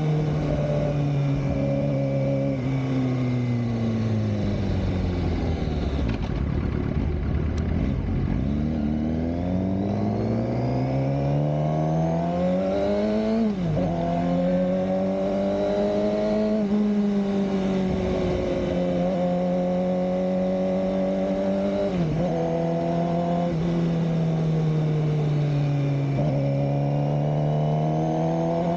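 Suzuki GSX-R600 K7's inline-four engine under way: revs falling for the first few seconds, then climbing steadily until a quick upshift about 13 s in. It then cruises at steady revs with brief dips from further shifts and picks up again near the end.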